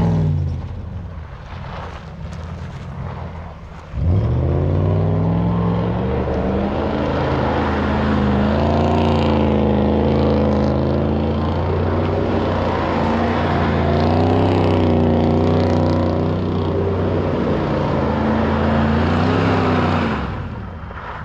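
Vehicle engine revving: after a quieter stretch, the revs climb sharply about four seconds in, stay high and fairly steady with small rises and dips, then fall away near the end.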